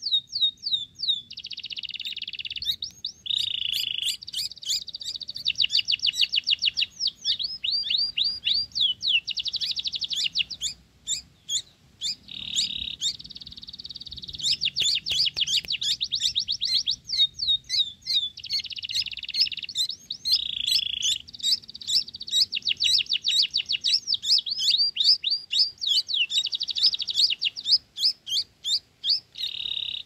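Sooty-headed bulbul fledglings giving begging calls: rapid runs of high, thin chirps, many a second, with short pauses between runs and some harsher, buzzier notes among them.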